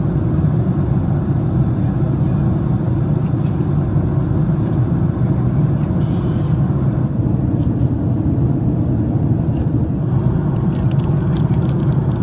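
Steady cabin noise of a Boeing 767 airliner in cruise: the low rumble of airflow and engines heard inside the cabin. There is a brief hiss about six seconds in and a few faint clicks near the end.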